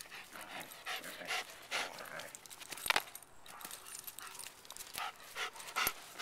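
A dog panting hard in quick, repeated breaths, about two to three a second, winded from chasing and retrieving a frisbee. A sharp click cuts in about halfway through and another near the end.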